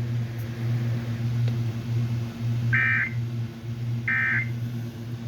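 Emergency Alert System end-of-message data bursts on a weather radio broadcast: three short, buzzy digital tone bursts about 1.3 s apart, the last right at the end, over a steady low hum. They mark the close of the severe thunderstorm warning.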